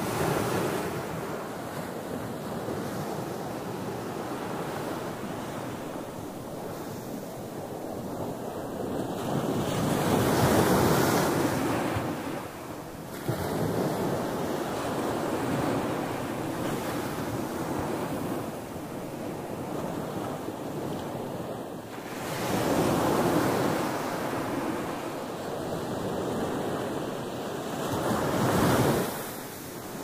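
Ocean surf on a sandy beach: small waves breaking and washing up the sand in a continuous rush, swelling louder as each wave comes in, most strongly about a third of the way through, again about three-quarters through, and near the end.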